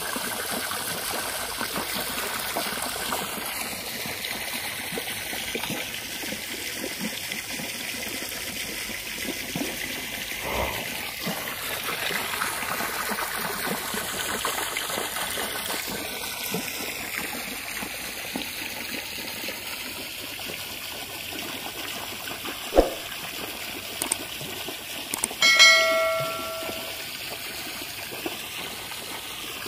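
A stream of water pouring into a swimming pool, a steady splashing rush of water. Near the end a sharp click, then a short bell chime.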